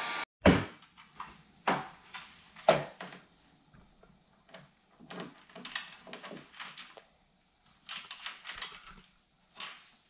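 Three sharp knocks in the first three seconds, then short scraping and rustling sounds, as a carbon fibre side skirt is handled and pressed onto a car's sill with double-sided tape.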